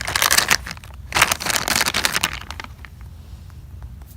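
Plastic packaging crinkling and rustling in two bursts as it is handled, the second lasting over a second, then a few faint clicks and taps.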